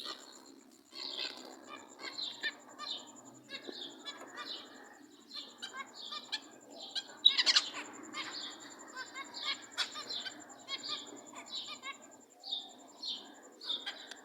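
Zebra finches calling: a steady run of short, high calls, one or two a second, with a louder sudden burst about seven seconds in.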